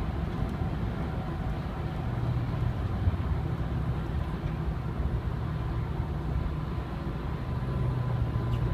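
Steady road and engine noise heard from inside a moving car's cabin at freeway speed: a low rumble with a faint steady whine above it.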